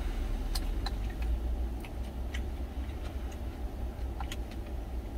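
Wooden spoon clicking and scraping against a small stainless steel food container as rice is stirred into kimchi broth, a few scattered sharp clicks over a steady low rumble.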